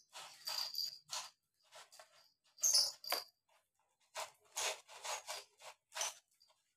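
Kittens playing with toy balls in a wire cage: irregular short bursts of scratchy rattling and scraping, some with a faint high ring.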